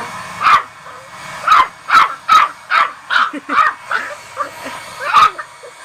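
Puppy barking and yipping in short, sharp bursts, about ten of them: one early, a quick run in the middle, and a last one near the end. It is barking in protest at a dryer's noise.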